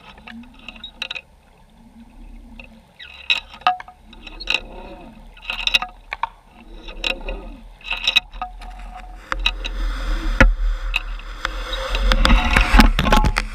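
Underwater sound heard through a GoPro's waterproof housing on the seabed: scattered sharp clicks and knocks over a low hum that rises and falls about once a second. From about nine seconds in a rushing, rumbling water noise builds and gets louder near the end.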